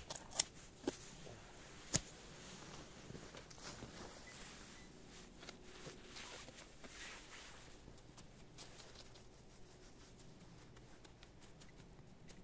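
Digging at a metal-detector signal: a few sharp knocks of the digging tool in the first two seconds, then faint scraping and rustling of soil.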